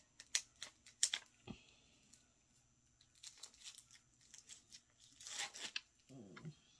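Tight plastic shrink wrap being picked at and torn off a small card box, with sharp crackles and crinkling; the longest, loudest tear comes about five seconds in.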